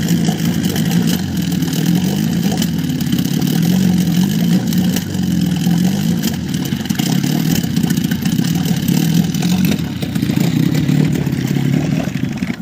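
HDX 30 outboard boat motor running unevenly, its speed wavering up and down again and again. This is the sneezing, unstable running that the owner puts down to air being drawn into the fuel line at the fuel filter fitting.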